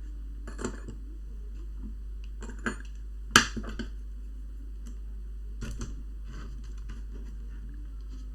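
Small clicks and taps of laptop parts and tools being handled during disassembly, with one sharper click about three and a half seconds in, over a steady low hum.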